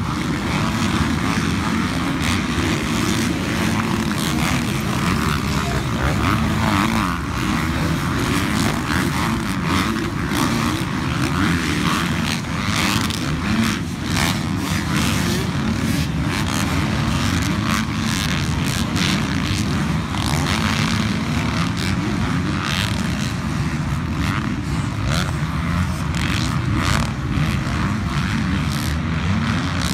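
Several motocross bike engines running and revving at once, their pitch rising and falling as the bikes race around a dirt track.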